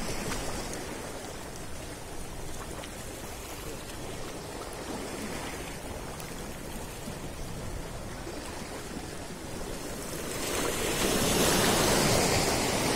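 Sea water washing against the rocks of a breakwater, a steady hiss of surf that swells louder for the last two or three seconds.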